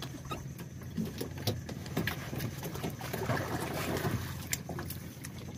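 Steady low hum of a boat engine running, with scattered small clicks and knocks over it.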